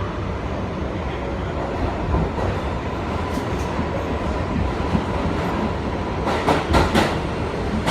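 R62A subway train running on the track with a steady rumble, and a quick run of about four wheel clacks over rail joints near the end.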